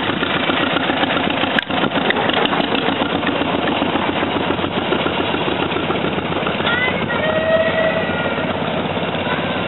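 Tractor engine running steadily with a rapid, even beat.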